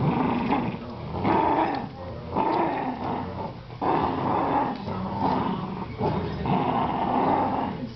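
Dog play growling during a tug-of-war over a rope toy between a Jack Russell Terrier and a Goldendoodle puppy: a string of rough growls, each about a second long, with short breaks between them.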